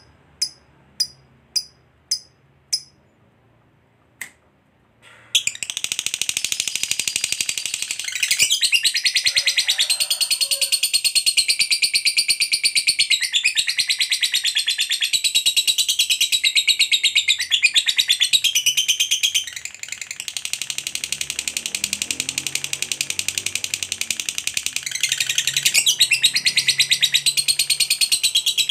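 Lovebird calling: a few short sharp chirps about twice a second, then from about five seconds in a long, unbroken, very rapid high-pitched chattering trill, the prized 'ngekek panjang' (long ngekek). The trill softens for a few seconds after the middle, then picks up again.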